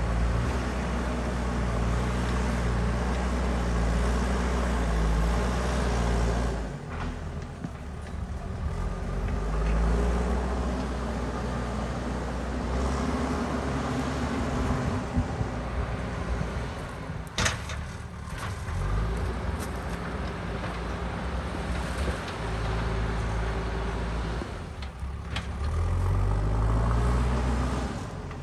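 JCB backhoe loader's diesel engine working under varying load, its pitch rising and falling repeatedly as the machine digs and moves. A single sharp clank comes a little past halfway.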